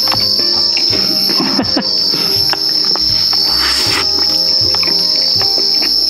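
Steady chorus of crickets and other night insects, one continuous high trill with no breaks. Scattered small clicks and mouth sounds from someone eating a chicken leg are mixed in.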